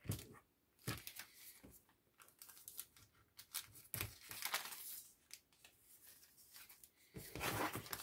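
Clear plastic bags and paper heat-transfer sheets being handled: irregular crinkling and crackling rustles, with louder bursts about four seconds in and again near the end.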